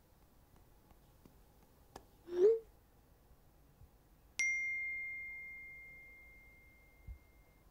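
A short rising swoosh, then about two seconds later a single bright ding that rings and slowly fades: a smartphone's text-message alert chime.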